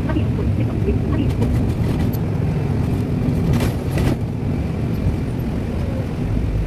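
Steady engine and road rumble heard from inside a moving bus, with a brief rattle about three and a half seconds in.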